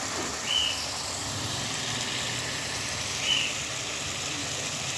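Chicken and tomatoes frying in a pan, a steady sizzling hiss, with two short high chirps about three seconds apart.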